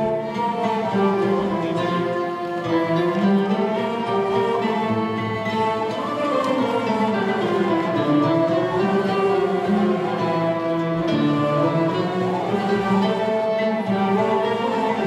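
Turkish classical music ensemble of ney, bowed strings including cello, ud and other plucked instruments playing a melody together in makam kürdilihicazkâr, the opening of a şarkı. The music starts suddenly right at the beginning and then stays at a steady level.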